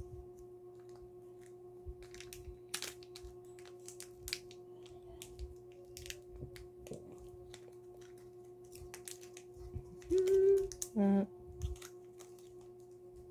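Plastic wrapper of a Ritter Sport chocolate bar crinkling and clicking as fingers pick and pull at it to get it open, in short scattered crackles over a steady low hum. About ten and eleven seconds in come two short, louder pitched sounds from a voice.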